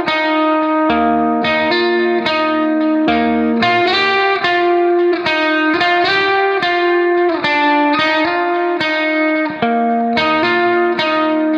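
Background music: a melody of quick, evenly paced notes over a low bass line that drops in and out.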